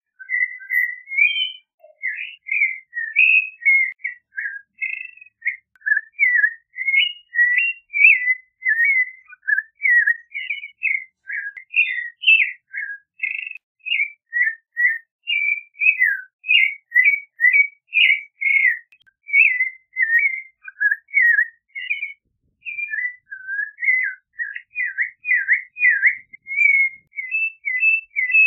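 Clay-colored thrush singing: an unbroken run of short, clear whistled notes that wander up and down in pitch, two or three notes a second. Near the end come several quick repeated swooping notes.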